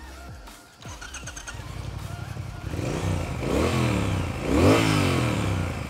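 Triumph Speed Twin's 1200 cc liquid-cooled parallel twin with a 270-degree crank, starting up about a second in and idling. It is then revved twice, the pitch rising and falling each time.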